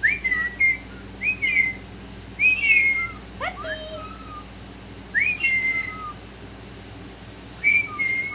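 Pet parrot, which its owner takes for a lilac-crowned amazon, whistling: about five loud whistled phrases, each a quick rising slide into a held note, often followed by a shorter lower note.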